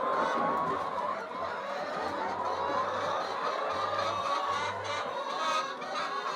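Flock of chickens calling together, a continuous overlapping chatter of clucks.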